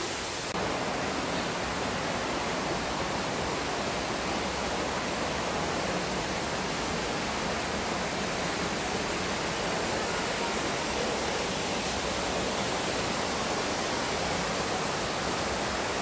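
Steady, even rushing noise with no distinct sounds standing out in it.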